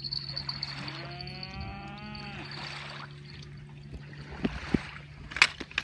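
A single long lowing call from a large animal, starting about a second in and lasting under two seconds, over a steady low hum. A few sharp clicks come near the end.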